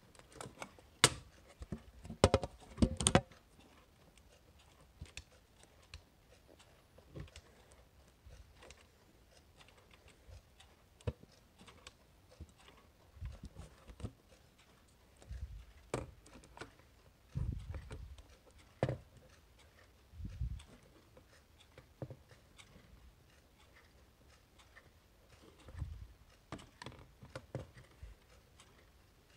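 Handling of a quartz wall clock as it is set back: a quick cluster of sharp clicks in the first few seconds, then scattered clicks and a few dull bumps.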